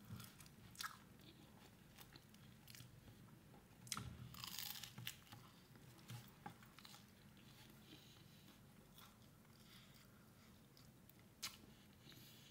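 Faint biting and chewing of a bread-roll sandwich close to the microphone: scattered crunchy clicks, with a louder stretch of crunching about four seconds in.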